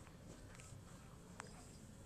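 Near silence: room tone with a couple of faint short clicks.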